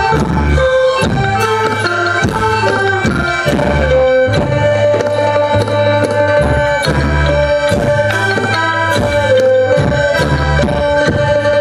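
Live Thai traditional folk ensemble playing dance music: a melody of held notes over drums beating a steady rhythm.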